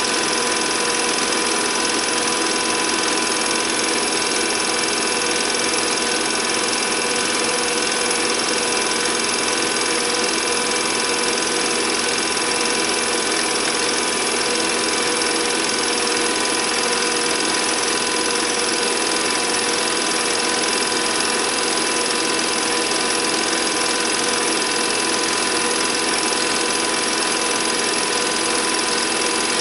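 Film projector running steadily, a continuous mechanical whirr and clatter of motor and film transport with no change.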